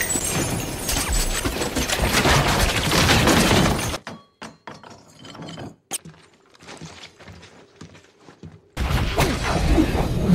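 Film action-scene sound: dense rapid gunfire with glass shattering and debris breaking for about four seconds. It cuts to a near-quiet stretch with only sparse clicks and knocks, and loud crashing impacts resume about nine seconds in.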